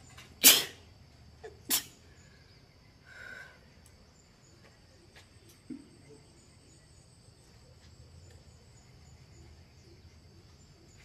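A woman sneezing twice in quick succession, about a second apart, the first sneeze the louder; the sneezes are brought on by tickling the inside of her nose with a cotton swab.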